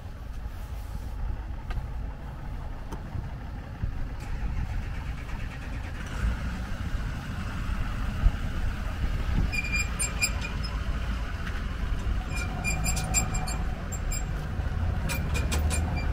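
Low, steady rumble of road traffic and vehicle engines running. In the second half, several short runs of sharp, quick ticks.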